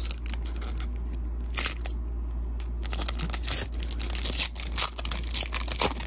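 Foil booster-pack wrapper being torn open and crinkled by hand: a run of sharp crackles and rustles, busiest in the second half.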